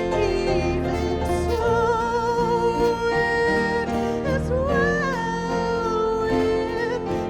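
Church worship music: a singer holding long notes with vibrato over instrumental accompaniment.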